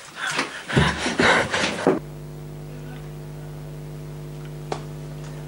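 A voice for about two seconds, then a sudden cut to a steady electrical hum that runs on with a single sharp click near the end.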